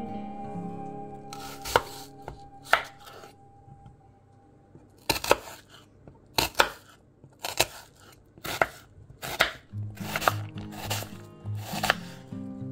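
Kitchen knife chopping a peeled onion on a wooden cutting board: sharp knocks as the blade cuts through the onion onto the wood. Two cuts come early, then a slow, steady run of cuts starts about five seconds in.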